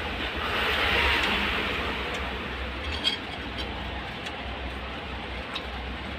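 Steady background hiss with a low rumble, overlaid by a few short clicks and smacks of someone eating fish and rice with his hands, the sharpest about three seconds in.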